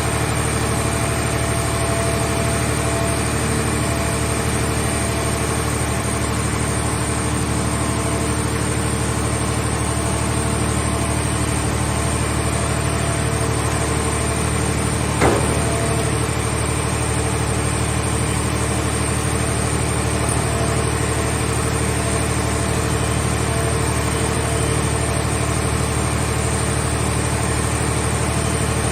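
Engine or power unit of a scrap car-body baler running steadily with a low hum, with a single sharp knock about halfway through.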